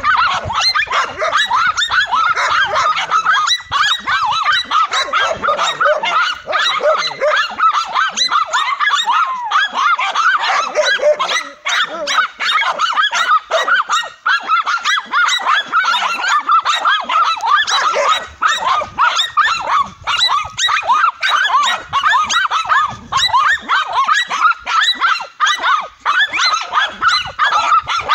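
Several dogs barking and yapping without pause, rapid overlapping high-pitched barks as they hold a tegu lizard at bay.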